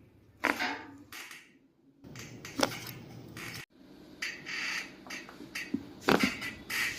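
Chiropractic thrust adjustments: a series of sharp cracks and clicks from joints popping under the practitioner's hands, several of them close together about six seconds in.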